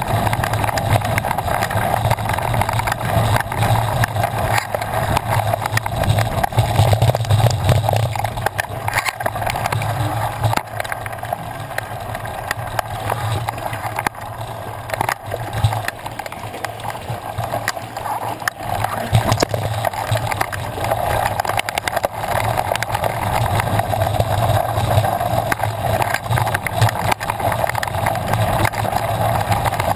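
Mountain bike ridden over a dry dirt trail: a steady rush of wind and tyre noise with frequent small rattling knocks from the bumps, easing a little about halfway through.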